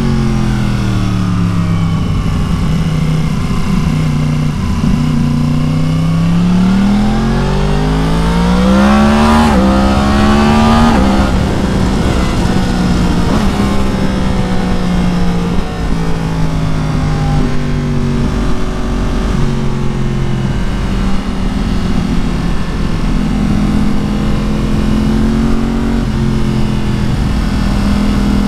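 2016 Yamaha MT-10's crossplane inline-four through an Akrapovic exhaust, under way on the road. The engine note falls away for the first few seconds, then revs up hard with a steeply rising pitch, peaking about ten seconds in, before settling into a steady cruise with small shifts in pitch.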